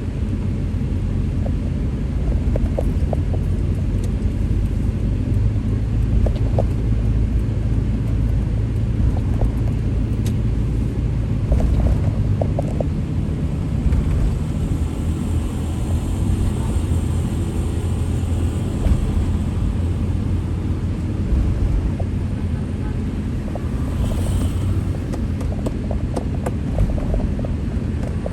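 Street traffic ambience: a steady low rumble of passing vehicles, with small clicks and knocks here and there.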